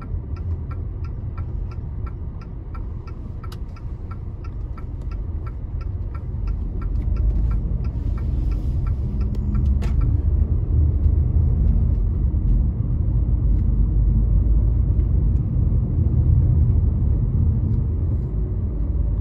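Car driving with its windows open: road and engine rumble, growing louder as it pulls away from a standstill and picks up speed. A quick, regular ticking, about three a second, runs through the first half and stops about halfway.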